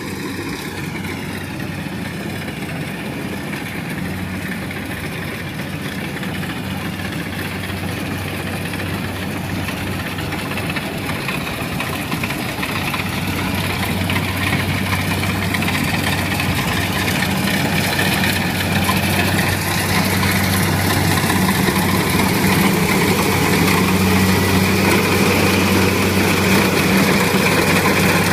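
Small rice combine harvester running under load as it cuts rice: a steady engine hum with the clatter of its cutter and threshing drum. It grows louder through the second half as the machine draws near.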